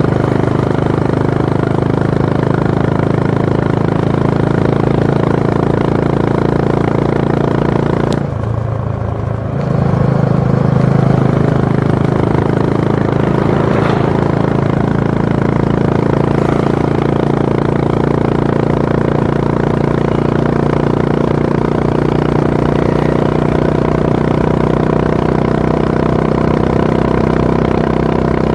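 Honda H'ness CB350's 348 cc air-cooled single-cylinder engine running steadily at highway speed. About eight seconds in, the engine note dips briefly, then comes back louder as it pulls again.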